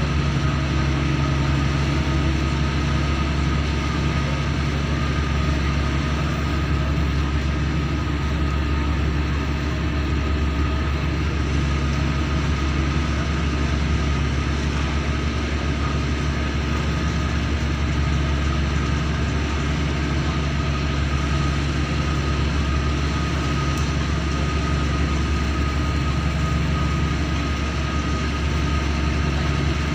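Ihan Batak ferry's engine running under way: a steady low drone with a constant hum, over the rush of water along the hull.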